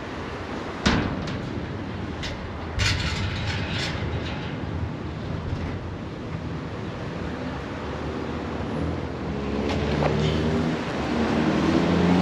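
City street traffic noise with a sharp knock about a second in and a brief hiss soon after. Near the end, a motor vehicle's engine grows louder as it approaches.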